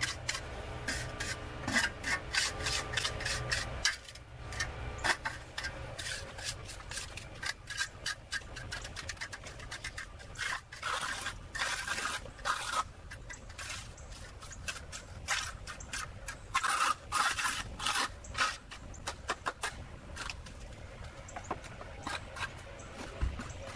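Hand trowel scraping and smoothing wet concrete into a trench, in many short, irregular strokes that come in clusters with quieter pauses between them.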